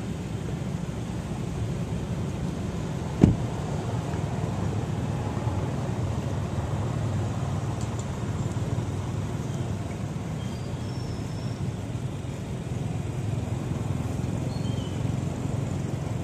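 Steady low outdoor rumble, with one sharp click about three seconds in.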